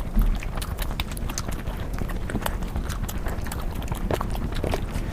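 Close-miked eating sounds: a quick, irregular run of crisp clicks and smacks from chewing.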